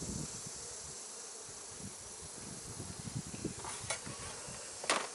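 Honeybees buzzing around an open hive, with a few sharp clicks in the last two seconds, the loudest near the end, as a hive frame is handled.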